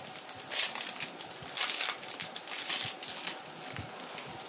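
Clear plastic bag crinkling and rustling in irregular bursts as it is handled, quieter near the end.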